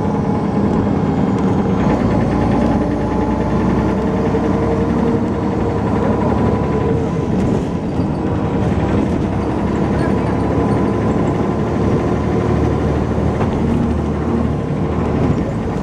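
Dennis Arrow double-decker bus's diesel engine running steadily, with a thin steady whine over it.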